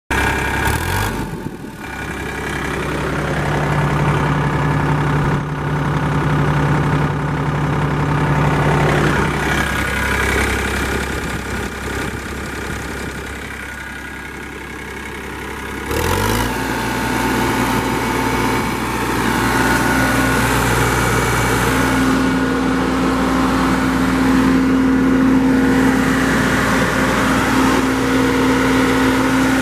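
Yanmar 3TNV84T three-cylinder turbo diesel in a John Deere 7500 E-Cut mower running steadily. About halfway through its speed jumps up sharply, then holds at the higher speed.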